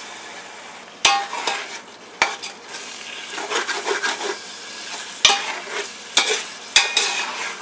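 Perforated steel ladle stirring and scraping through onions and ginger-garlic paste frying in oil and ghee in an aluminium pot, with about five sharp clanks of metal on the pot. The mix sizzles steadily throughout, starting as a splash of water goes into the hot oil.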